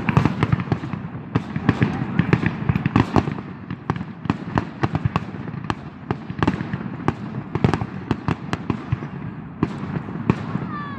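Fireworks and firecrackers going off: a dense, irregular string of sharp bangs and cracks, several a second, over a continuous low rumble of more distant bursts.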